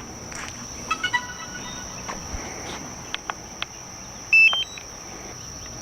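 Steady high-pitched insect buzz, like crickets, with a few faint clicks and short electronic beeps, and one loud beep about four and a half seconds in.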